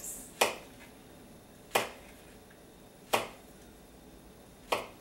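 Small kitchen knife slicing a ripe plantain into rounds on a paper plate: four sharp knocks, about one every second and a half, as each cut goes through and the blade meets the plate.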